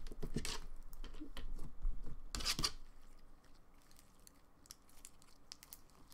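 Thick white glue-based slime with foam beads being squeezed and pulled apart by hand, stiffened by freshly added activator, giving sticky tearing and crackling sounds. There is one loud tear a little over two seconds in, then only faint clicks.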